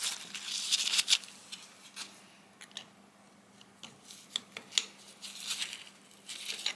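Steel spanner working the Whitworth nut on the swivel of a Colchester lathe's compound slide: irregular metallic clicks, clinks and short scraping rubs as the slide's angle is set.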